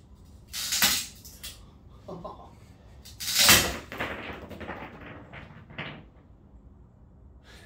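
A solid geode being cracked: two sharp cracking knocks, the louder about three and a half seconds in, then lighter clatter as the stone and pieces knock and roll on the floor.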